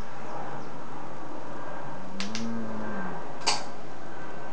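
Small sharp clicks, two close together and one a second later, as makeup things are handled. A short hummed note rising and falling sits under steady background hiss.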